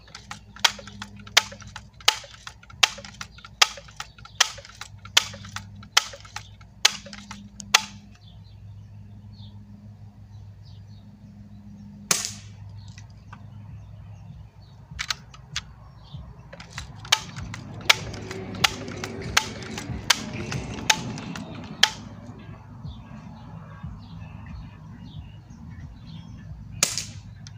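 Barra 1866 lever-action BB rifle being pumped: the lever is worked over and over, a sharp click about every three-quarters of a second for some eight seconds, then more clicks after a pause. Near the end the rifle fires once with a short pop.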